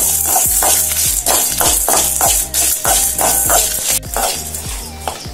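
Metal spoon scraping and stirring coriander seeds, dals and dried red chillies as they roast in oil in an aluminium kadai, in repeated strokes about three a second, over background music.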